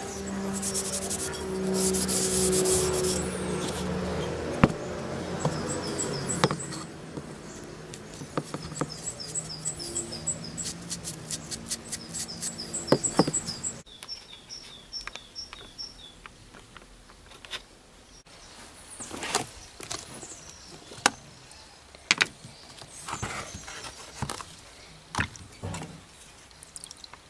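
Birds chirping in short repeated series over rubbing from hand work on a hatchet's wooden handle. About halfway through the sound cuts to quieter scattered clicks and knocks as the rusty hatchet head is handled in a plastic tub of vinegar.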